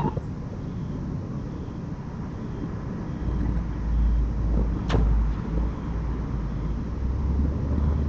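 Low, steady rumble of a motor vehicle that comes in about three seconds in, with one sharp click near the middle.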